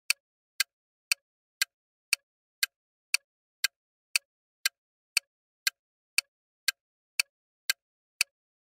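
Countdown timer sound effect: evenly spaced sharp clock-like ticks, about two a second, with silence between them.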